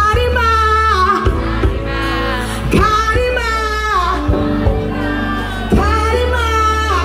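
Soca song: a woman sings three long phrases of held, wavering notes over a steady bass-heavy beat.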